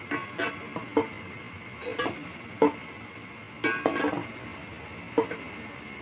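A metal utensil stirring in a metal cooking pot, clinking and knocking against the pot about eight times at an irregular pace, some knocks ringing briefly.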